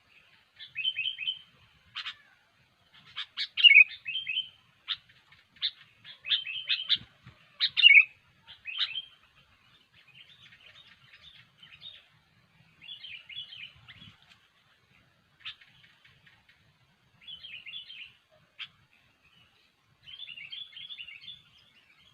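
Sooty-headed bulbul (kutilang) singing vigorously: short phrases of quick, bright chirping notes with brief pauses between them, louder in the first half and fainter toward the end.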